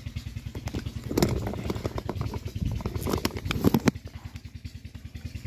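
A diesel tubewell engine running steadily, pumping irrigation water, heard as a rapid, even low thudding. A few sharp clicks and knocks sound over it.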